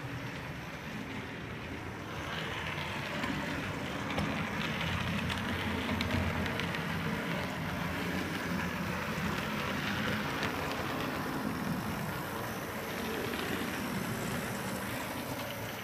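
Model camel-class steam locomotive and tender running along the layout track: a steady mechanical whir and rattle of the small motor and wheels on the rails, growing louder about two seconds in and easing off near the end.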